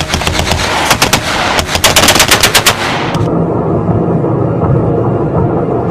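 Firearms shooting in rapid bursts of gunfire for about three seconds, then stopping. A low steady rumble is left behind.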